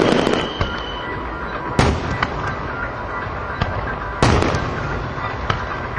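Fireworks display: shells bursting with sharp bangs, one about two seconds in and another past four seconds, with smaller crackles and pops between them as an earlier burst dies away.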